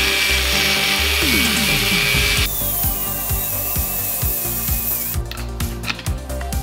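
Angle grinder grinding on a steel hub, with a steady motor whine. The grinding is loudest for the first couple of seconds, then the whine slides down in pitch and stops about five seconds in. Background music with a steady beat runs underneath and carries on after the grinder stops.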